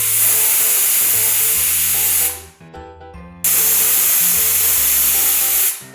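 Pressure cooker whistle releasing steam twice, each a loud hiss of about two seconds with a short pause between, over light background music.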